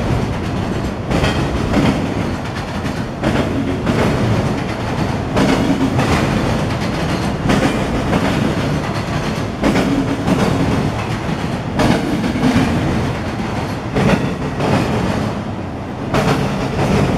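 Freight train of autorack cars rolling past, a steady rumble of steel wheels on rail with clacks recurring roughly once a second as the wheels cross rail joints.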